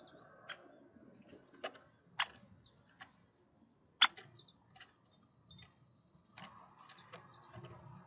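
Great spotted woodpecker visiting a wooden feeder shelf: a series of sharp, irregular ticks and knocks, the loudest about four seconds in.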